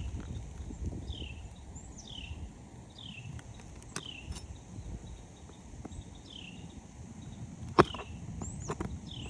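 A bird calling over and over with short falling chirps, about one a second. A few sharp knocks and taps from a hand tool working the roof shingles come through, the loudest near the end, over a low rumble of movement on the roof.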